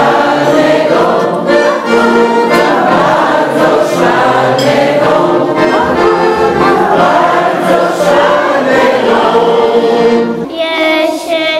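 Piano accordion playing a tune with a group of voices singing along. About ten and a half seconds in, the low accompaniment drops away.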